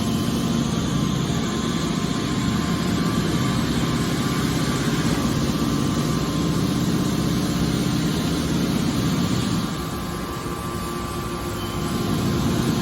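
Hydraulic aluminum can baler running, its hydraulic power unit giving a steady mechanical hum. The level dips about ten seconds in and rises again near the end.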